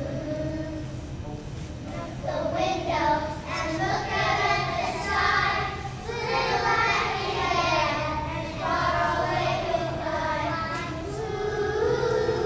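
A group of young children singing a Halloween song together, the singing growing louder about two seconds in.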